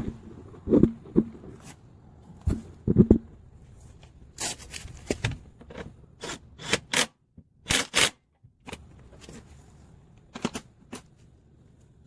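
Irregular clicks, knocks and short scrapes of hand tools and metal parts being handled during car repair work, with several sharper rasping bursts around the middle.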